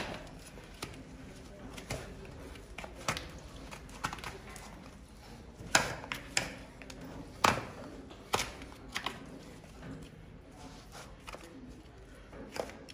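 Hoof knife paring the sole of a horse's hoof: irregular short cutting scrapes and sharp clicks at uneven spacing.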